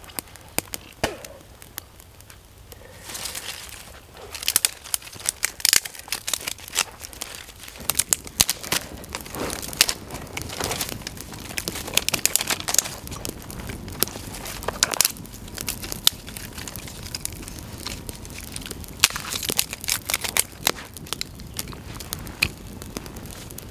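Small twig fire crackling, with irregular sharp cracks and rustling as dry sticks are handled and fed to it.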